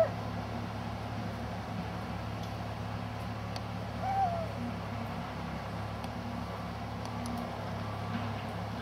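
Canada lynx giving one short call that rises and falls, about four seconds in, over a steady low drone of construction machinery that the lynx is calling out against.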